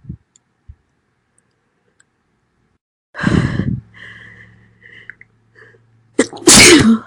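A woman sneezing loudly twice: a breathy, noisy sneeze about three seconds in, then a second sneeze near the end whose voiced part falls in pitch.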